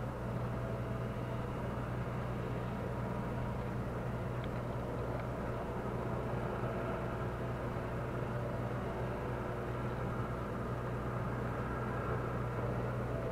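A steady low engine hum under a constant wash of outdoor noise, unchanging throughout.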